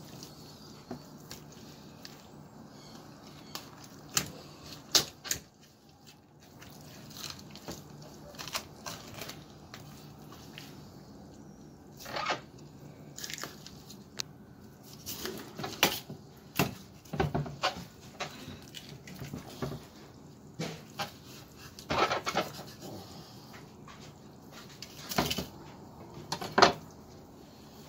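Long knife cutting through a golden trevally's flesh along the backbone and over the rib bones: irregular scraping and crunching clicks, with now and then a sharp knock of the blade on the cutting board.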